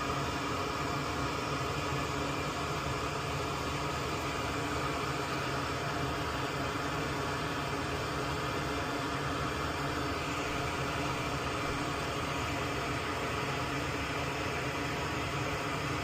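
Steady fan noise: an even hiss with a low hum that does not change.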